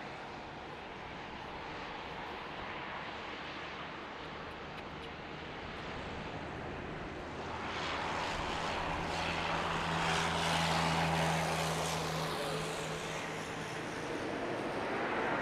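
Airbus A380 jet engines running at taxi power as the four-engine airliner rolls past, a steady rushing jet noise with a low hum that grows louder about halfway through, then eases briefly near the end.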